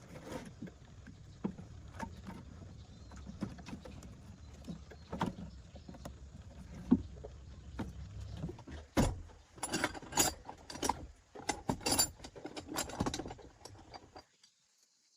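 Irregular clicks and knocks, a denser run of sharp clacks from about nine to thirteen seconds in, then a sudden cut to silence near the end.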